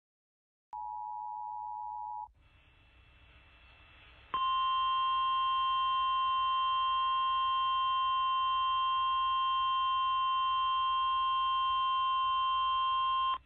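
A brief two-tone beep lasting about a second and a half, then faint radio hiss, then the steady 1050 Hz NOAA Weather Radio warning alarm tone. The alarm tone sounds for about nine seconds and cuts off abruptly; it is the signal that a weather warning broadcast follows.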